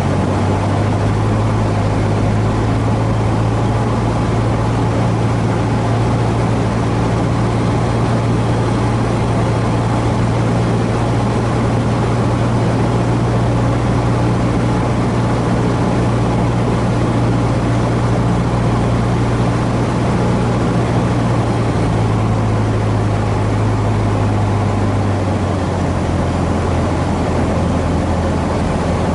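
Cessna 150H's four-cylinder Continental O-200 engine and propeller droning steadily, heard inside the cabin on approach to landing. The engine note drops a little about 25 seconds in.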